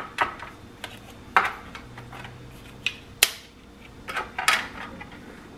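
Dry oven-ready lasagna noodles being snapped and set down in a baking pan: a string of sharp, irregular clicks and snaps, the sharpest a little past three seconds in.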